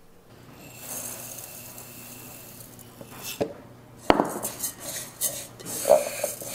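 Dry brown rice grains pouring from a glass jar into a metal rice cooker pot, a steady hiss of grains. About four seconds in comes a sharp knock, followed by clinks and rattles as the jar is set down and the pot is handled.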